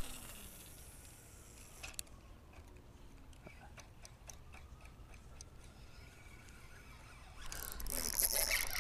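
Spinning reel being cranked on a retrieve, giving faint, irregular ticking, after a short swish from the cast at the start and a sharp click about two seconds in. Near the end a louder rush of noise builds up.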